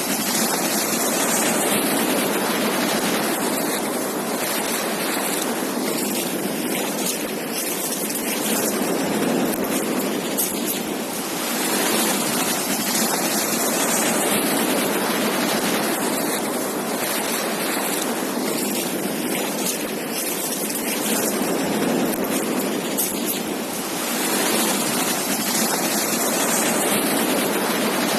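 Ocean surf washing onto a beach: a steady rush that swells and eases slowly, about every eleven or twelve seconds.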